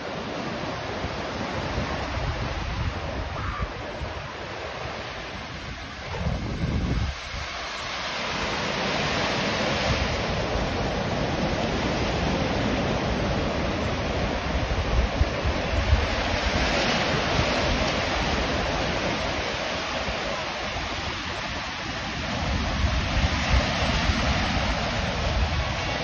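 Ocean surf washing up the beach, a steady rush that swells and fades as each wave comes in. Wind buffets the microphone with a gusty low rumble.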